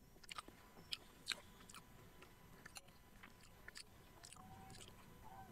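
Faint chewing of soft glutinous rice balls, with scattered small wet mouth clicks.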